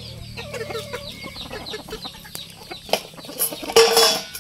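Rooster pecking grain from a clay bowl, its beak tapping quickly against the bowl, with chickens clucking around it. A louder chicken call comes near the end.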